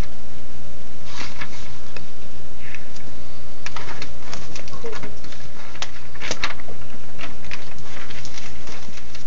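Glossy newspaper ad circulars rustling and crinkling as they are handled and shuffled, in scattered short bursts, over a steady low hum.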